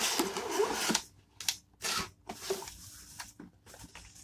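Paper and cardboard rustling and scraping as a sheet is pulled out of a cardboard craft-kit box: a loud rustle for about the first second, then a few short rustles and taps from handling the paper.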